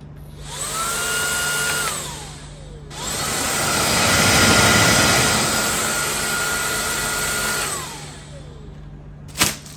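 Agaro Supreme cordless stick vacuum cleaner switched on and off twice. Each time its motor spins up to a steady high whine with rushing air, then winds down with a falling whine. The first run is brief; the second lasts about five seconds and is loudest in its middle. A single click comes near the end.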